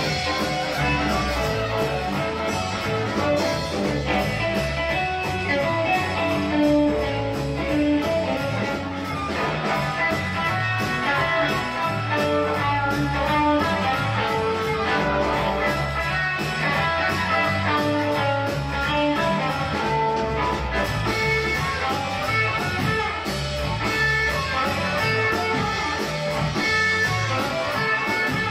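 Live band playing an instrumental passage: electric guitar over bass guitar and a drum kit keeping a steady beat.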